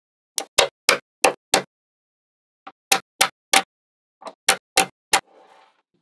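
Small magnetic balls snapping together as bars of them are pressed onto a magnet-ball wall: three runs of four or five sharp clicks, about three a second, with a soft scrape near the end.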